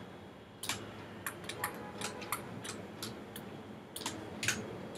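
Computer mouse and keyboard clicking irregularly, about a dozen short sharp clicks spread over a few seconds, over faint steady hiss.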